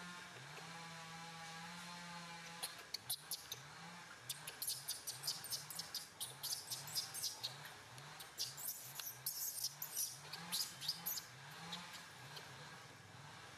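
Infant macaque's high, wavering cries for the first few seconds, then many short, sharp squeaks and crackles as it moves about on dry leaves.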